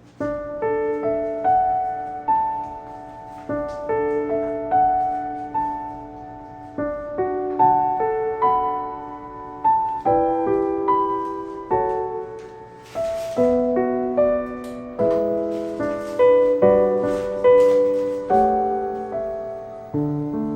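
Background piano music: a melody over broken chords, each note struck and left to fade.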